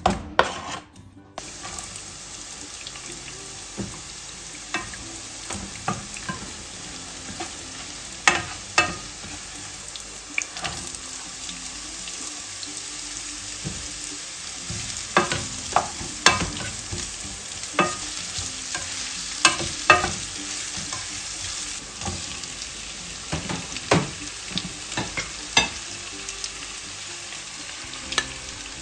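Tofu, onion and garlic sizzling in hot oil in a nonstick frying pan: a steady hiss, with scattered sharp clacks of a spatula stirring and scraping against the pan.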